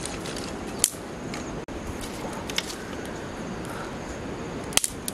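Dry sticks and twigs giving a few sharp cracks a second or two apart as firewood is broken and laid on a small wood fire, with a close double crack near the end, over steady background noise.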